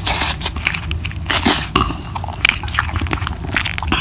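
Close-miked chewing and lip-smacking as a man eats chicken curry, biting meat off a drumstick: irregular smacks and clicks several times a second.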